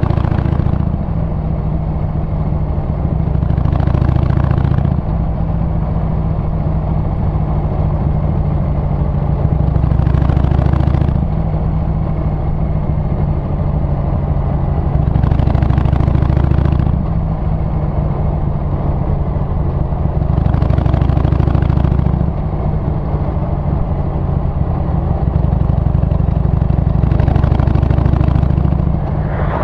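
Harley-Davidson Sportster 883's air-cooled V-twin engine and exhaust heard while riding on the road, a deep steady note that shifts in pitch several times. Short rushes of hiss come in about every five or six seconds.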